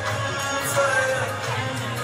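A song playing: a singing voice gliding over a steady low beat.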